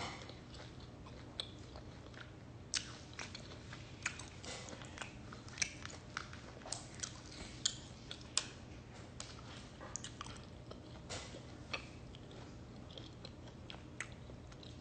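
Close-up chewing with open-mouthed smacking: a person eating, giving irregular short wet clicks and smacks over a faint steady hum.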